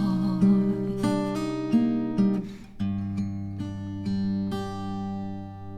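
Instrumental ending of a ballad: acoustic guitar plucks a few single notes, then a final chord about three seconds in that rings on and slowly fades.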